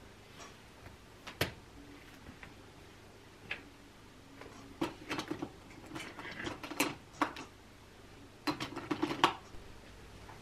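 Hands handling a notebook, pen and phone on a wooden desk: scattered light clicks and taps, bunched in quick clusters about five seconds in and again near the end.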